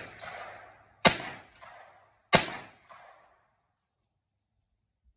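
Two rifle shots about a second and a quarter apart, each with a short echo trailing off behind it, following the fading echo of a shot fired just before.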